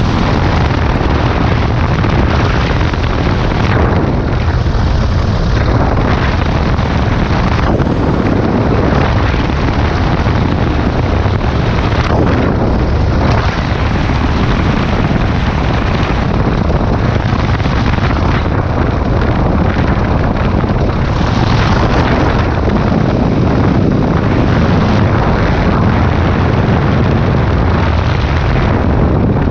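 A Baby Ace light aircraft's piston engine and propeller run steadily as it taxis. The sound is a loud, constant rough rumble, with wind buffeting the microphone.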